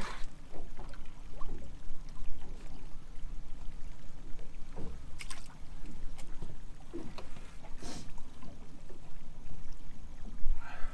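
Small motorboat's engine idling with a steady low hum, with water sloshing in a fish tub and a few sharp knocks as the catch is handled on deck.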